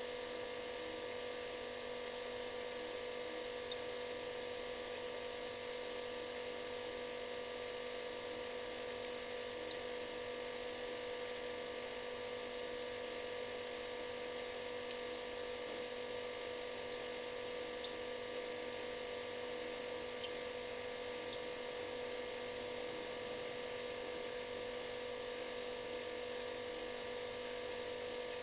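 Refrigerator running with a steady buzzing hum: one strong pitched tone over several weaker ones and a bed of hiss, and a few very faint ticks scattered through it.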